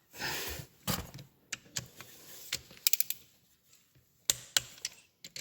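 Irregular sharp clicks and light metallic knocks of hand tools, a wrench and socket, being handled on an engine block while bolts are tightened in stages. A short scraping swish comes first, then single clicks and a quick cluster of clicks about three seconds in.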